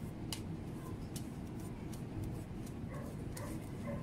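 Tarot cards dealt and laid out on a glass tabletop: a few light clicks as cards are set down, over a steady low background hum. A few faint short pitched sounds come near the end.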